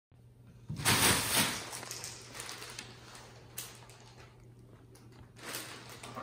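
Clear plastic bag crinkling and rustling as a Siamese cat climbs into it and paws at it: a loud burst about a second in, then lighter crackling and two more rustles later, over a faint steady low hum.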